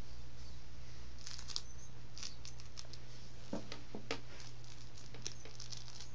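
A cat's claws and teeth working a stuffed toy on carpet: scattered short scratching, rustling and clicking, a little busier around the middle, over a steady low hum.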